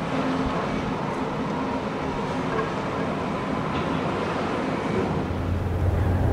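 Steady mechanical rumble of Panama Canal lock machinery: the electric towing locomotives (mules) working alongside a container ship in the lock chamber. A deeper, steady drone comes in about five seconds in and grows louder.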